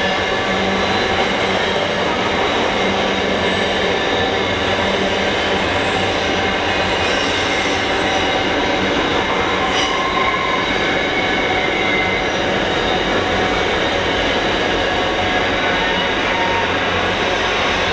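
Container wagons of a long intermodal freight train rolling steadily through a tight curve, the wheels squealing against the rails in thin high tones over the rumble of the train.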